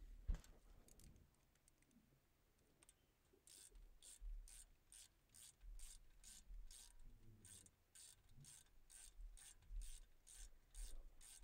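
Ratchet wrench clicking faintly as it runs in the brake caliper slide bolts: a steady train of short clicks, about two or three a second, after a single knock at the start.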